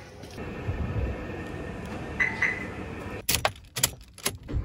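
Car key with its key ring going into the ignition: a quick run of sharp metallic clicks and jangles. Before it come low footfalls going down concrete stairs and a short beep a little after two seconds in.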